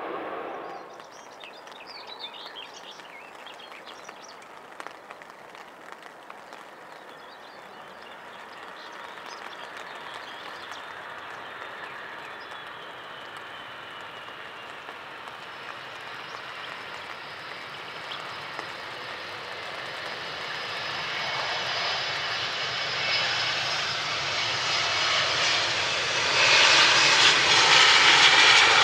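Twin-engine Boeing 757 jet airliner landing on a wet runway: its engine noise grows steadily louder over about twenty seconds, then becomes loud near the end as it rolls past, with a hiss of spray from the wheels and a falling whine. At the start the sound of the previous airliner fades out, and a few faint bird chirps come in the quieter stretch.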